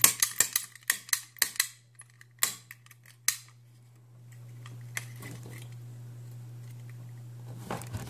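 Sparrows snap gun triggered in a brass pin-tumbler practice lock: a quick run of sharp metallic snaps in the first couple of seconds, then two single snaps. Each snap flicks the needle up against the pin stacks while the tension wrench holds light turning pressure, to bounce the pins to the shear line.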